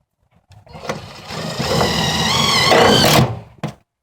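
Power drill driving a screw through the nailing flange of an aluminium standing seam roof panel: the motor whines for about three seconds, its pitch wavering near the end, then stops.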